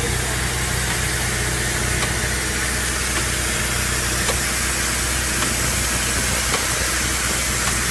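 A machine's engine running steadily under a loud, continuous hiss of spraying water or jetting air, as from a road-cleaning machine at work.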